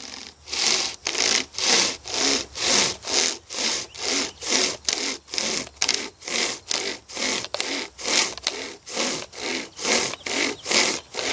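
A dull chainsaw chain worked as a two-handled hand saw, pulled back and forth through a log. Steady rasping cutting strokes, about two a second.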